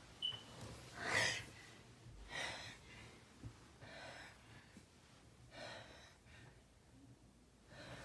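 A person's breath catching in short gasping inhales, four in a row one to two seconds apart, the first about a second in the loudest. It is the build-up of a coming sneeze.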